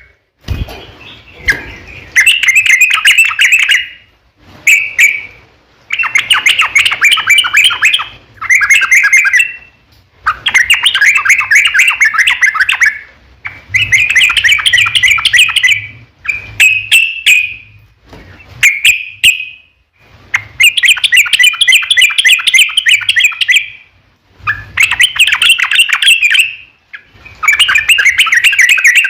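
Yellow-vented bulbul (cucak trucuk) singing: about eleven loud phrases of rapid notes, each one to four seconds long, with short pauses between.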